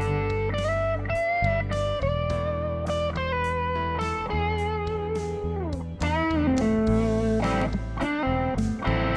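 Burman Sola electric guitar with a single Sunbear SB90 P-90-style pickup, played through a valve amp, with lead lines of single notes, string bends and vibrato. A long slide down comes about five to six seconds in.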